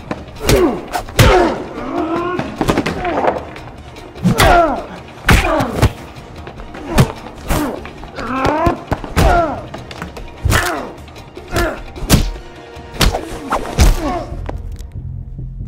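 Cinematic fight sound effects: a fast series of about twenty punch and body-blow impacts, with grunts and groans of effort between the hits. Near the end the hits stop and a low hum is left.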